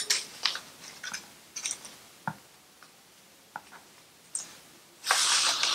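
Small paper cut-outs being handled and set down on a sheet of paper: scattered light clicks and taps, then a louder rustle of paper near the end.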